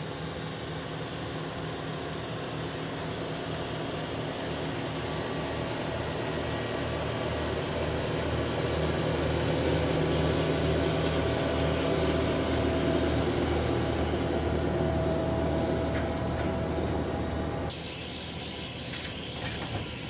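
Tractor engine running steadily while towing a Vermeer Rancher round baler that is picking up hay. The sound grows louder as the rig passes close and is loudest around the middle. Near the end it drops abruptly to a quieter running sound with a few light clicks.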